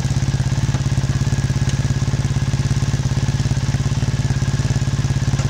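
Triumph Thruxton motorcycle's parallel-twin engine idling steadily, with an even, rapid exhaust beat.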